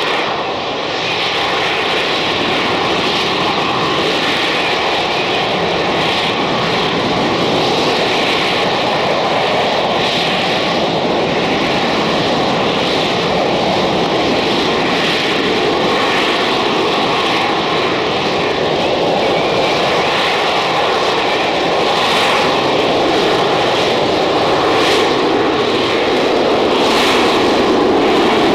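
Loud, steady jet noise from an AV-8B Harrier II's Rolls-Royce Pegasus turbofan, swelling slightly near the end.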